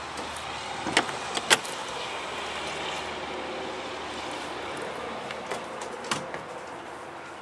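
Travel trailer entry door being unlatched and opened: two sharp latch clicks about a second in, then another knock near the end.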